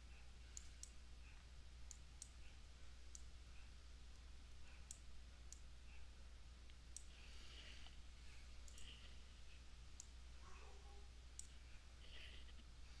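Near silence with faint computer mouse clicks, about a dozen at uneven intervals, over a low steady hum.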